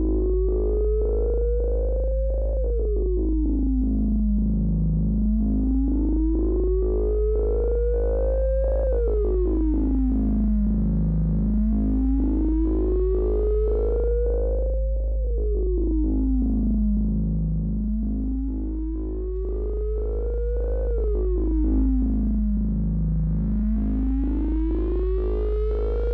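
Electronic synthesizer music: a steady deep bass drone under a synth tone that slowly glides up and then falls back, repeating about every six seconds, with a fast pulsing rhythm. The bass is the track's Behringer Neutron synth part.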